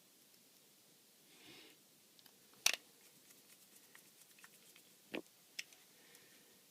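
Faint clicks and taps of a small T5 Torx screwdriver and screws against a phone's plastic frame as the corner screws are driven back in, with a soft scrape about a second and a half in and the sharpest click a little under three seconds in.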